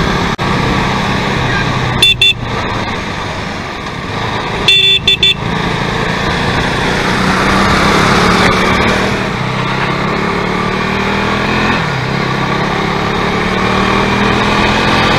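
KTM RC390's single-cylinder engine running under way, with wind rushing over the microphone. The engine note climbs about six to eight seconds in and drops near twelve seconds. Short vehicle horn toots sound about two seconds in and again, several in quick succession, about five seconds in.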